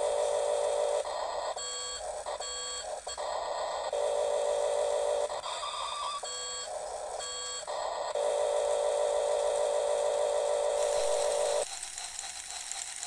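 Electronic beeping and buzzing sound effects from a battery toy's sound chip. Three long buzzing tones are broken up by short beeps. Near the end they give way to a quieter mechanical whirring of a small toy gear motor.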